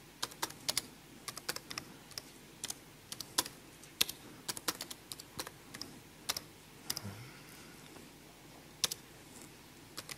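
Computer keyboard being typed on: short, irregular keystroke clicks in quick runs with brief pauses, as console commands are entered.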